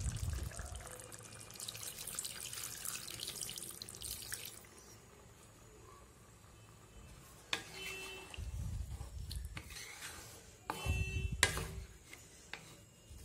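Water poured from a small bowl into a pan of simmering fish curry, splashing for about four and a half seconds, to thin the broth. Later come a sharp click and a few low knocks and rumbles.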